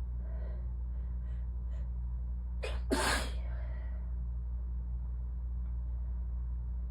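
A single allergy sneeze into a tissue, sharp and loud, about three seconds in, preceded by a few faint catching breaths. A steady low hum runs underneath.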